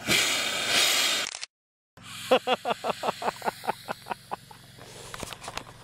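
A Sonora gophersnake hissing loudly for about a second and a half, a sign of a defensive, agitated snake. After a short break comes a rapid run of short chirps, about six a second.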